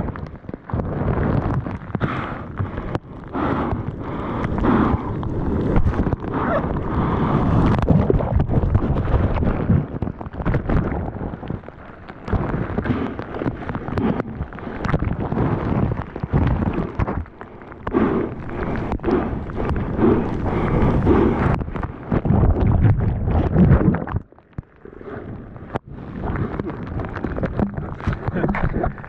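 Breaking waves and whitewater rushing and splashing close around an action camera, rising and falling in surges, with wind buffeting the microphone. The sound drops away briefly about three-quarters of the way through.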